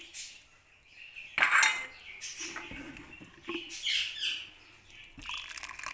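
A spoon scraping and knocking against a non-stick frying pan as thick chutney is ladled out, with a loud clatter about a second and a half in.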